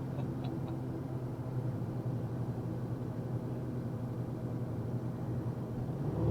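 Box truck engine running steadily, heard from inside the cab as a low drone with road noise. It grows louder right at the end.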